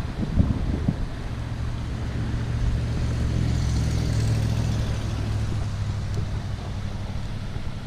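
A motor vehicle passing: a low engine hum that grows to its loudest about four seconds in and then slowly fades. Wind rumbles on the microphone at the start.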